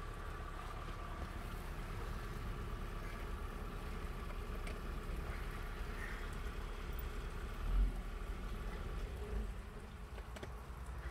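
A steady low engine rumble with a faint steady whine that stops about nine seconds in, and a low thud about eight seconds in.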